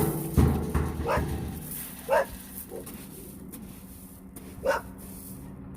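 A shop dog barking: a loud burst at the start, then short single barks about a second, two seconds and nearly five seconds in.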